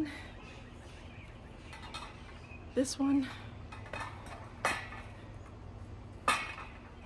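Bird-food containers being handled and set down: a few sharp knocks and clinks, starting about three seconds in and spaced about a second apart.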